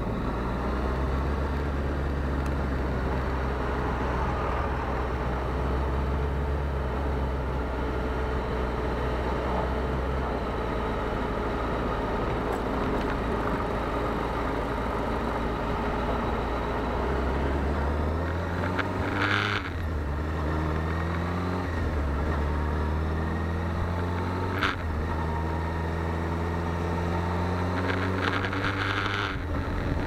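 Sport motorcycle engine heard from the rider's seat, running steadily at first, then past the halfway point revving up and shifting up through the gears several times, the pitch climbing and dropping back with each change.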